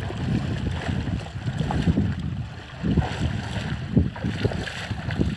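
Wind buffeting the microphone in irregular gusts, with water sloshing and splashing around a man's legs as he wades out through shallow river water.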